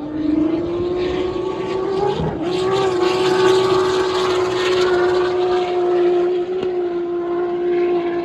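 Racing powerboat's turbocharged Ford Barra straight-six held at high revs in a steady, high-pitched note, with a short dip and recovery about two seconds in, over the hiss of the hull and spray on the water.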